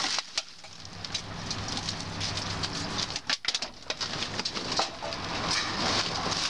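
Plastic bags, paper cement-mix sacks and loose trash rustling and crinkling as gloved hands dig through a dumpster: irregular crackles and scrapes throughout, with short pauses.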